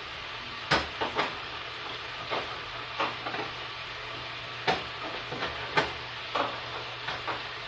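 Hamburger patties sizzling in a frying pan on an electric stove, with a string of sharp clicks and knocks as the pan and the coil burner element are handled. The burner has been cutting out, and the element is being jiggled in its socket.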